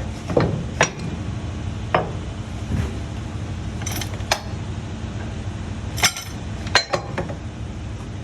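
Metal clanks and clicks from a Mampaey quick release towing hook being reset by hand, its handles pulled and the mechanism latching: about nine sharp knocks at uneven intervals, over a steady low hum.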